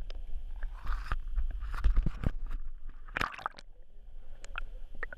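Water sloshing and splashing around the stern of a moving outboard fishing boat, in irregular surges over a steady low rumble.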